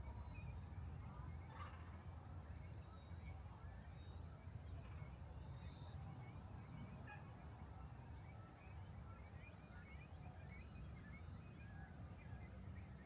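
Faint outdoor ambience: small birds chirping and twittering now and then over a low, steady rumble.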